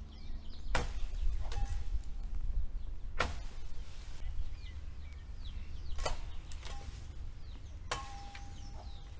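Four sharp chops or snaps a couple of seconds apart as branches are cut from a tree, with birds chirping faintly.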